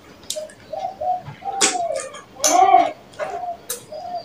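Close-miked eating sounds of rice and curry eaten by hand: wet lip smacks and chewing clicks, mixed with short low hums or coo-like sounds, loudest about halfway through.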